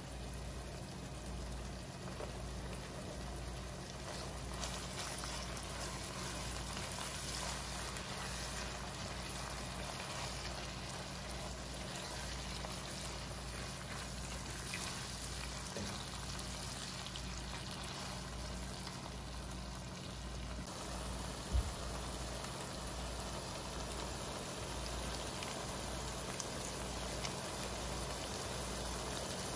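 Ground beef, onions and green peppers sizzling and simmering in their juices in a frying pan, over a low steady hum. A single short knock about two-thirds of the way through.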